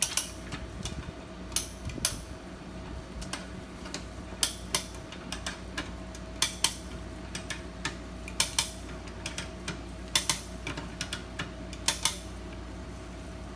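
Come-along (hand ratchet winch) being cranked under load, stretching a bungee shock cord: its pawl clicks over the ratchet teeth in sharp metallic clicks, often in pairs about a quarter second apart, every second or two.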